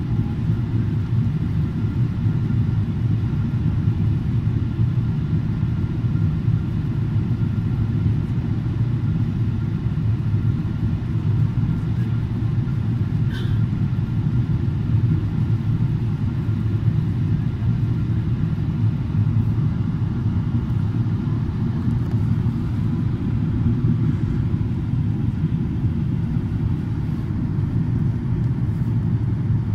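Steady low rumble of a Boeing 777-300's cabin in flight: engine and airflow noise heard from a window seat near the wing. A brief faint high sound comes about halfway through.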